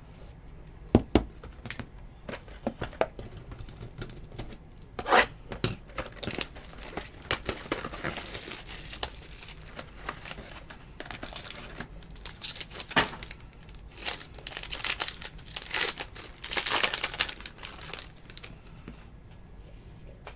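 A few sharp clicks and taps of hard plastic as cards are handled in top loaders, then a trading-card pack's foil wrapper being torn open and crinkled. The crinkling comes in two stretches, the louder one near the end.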